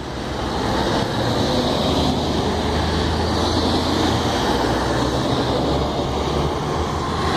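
Heavy fire engines driving slowly past, their diesel engines giving a steady rumble.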